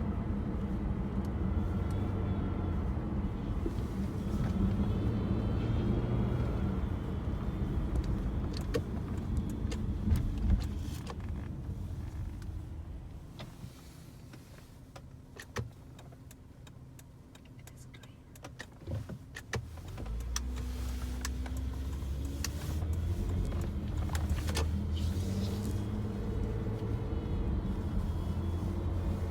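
Hyundai Sonata running with a metallic grinding and squeaking noise. The noise dies down for several seconds in the middle, then the car's sound comes back louder about twenty seconds in.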